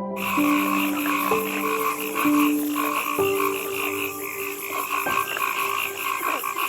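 Frogs calling in chorus, a rapid pulsing croak that runs on steadily, with soft background music of held notes underneath.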